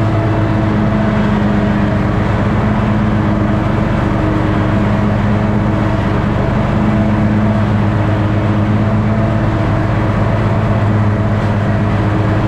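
Toro riding mower's engine running at a steady speed while cutting grass, a constant low drone.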